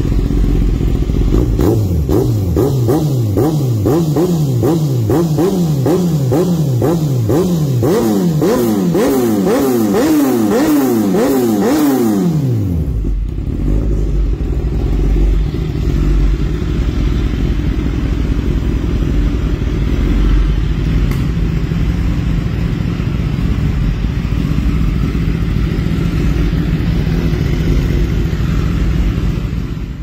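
Kawasaki Ninja ZX-10R's inline four-cylinder engine through a Spark aftermarket exhaust, revved in quick repeated throttle blips, each rising and falling, for about twelve seconds. It then drops back to a steady idle.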